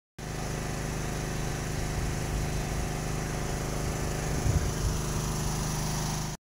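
Agricultural spraying drone's rotors humming steadily in flight, an even pitched drone over a hiss. A few louder low bumps come about four and a half seconds in.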